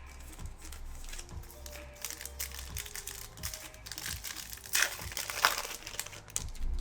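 Foil card pack wrapper of a 2021 Panini Prizm football blaster crinkling and crumpling as it is handled and opened, loudest about five seconds in.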